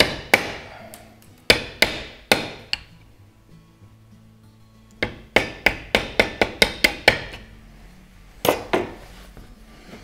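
A wood chisel being struck with a mallet to chop out a notch in a wooden boat stringer. A few spaced blows come first, then a quick run of about ten lighter taps around the middle, then two more blows near the end.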